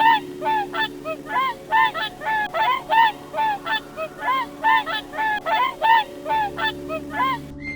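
Goose honking over and over in short calls, about three a second.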